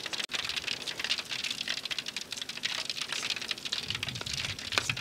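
Beer-battered fish deep-frying in a foil pan of hot oil: a steady, dense crackle and sizzle of oil bubbling around the pieces.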